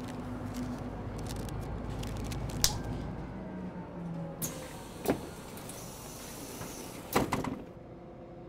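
City bus interior running: low engine rumble and road noise, with sharp knocks and rattles about two and a half, five and seven seconds in. The sound then drops to a quieter steady hum.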